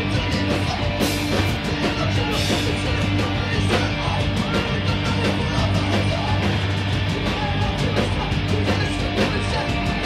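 Hardcore punk band playing live and loud: distorted electric guitar, bass and drums, with dense drum hits and cymbal crashes about one and two and a half seconds in.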